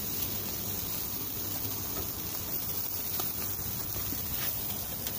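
Lamb chops sizzling on a charcoal grill: a steady hiss with a few faint pops.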